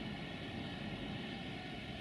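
Passenger train rolling slowly through the station: a steady rumble of wheels on rail.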